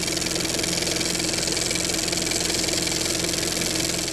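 Steady engine-like mechanical drone with a low hum.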